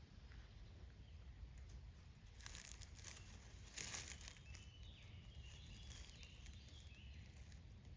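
Quiet forest ambience with a steady low rumble. Gentle crackling rustles come in two short clusters, about two and a half and four seconds in. A faint distant bird call follows in the second half.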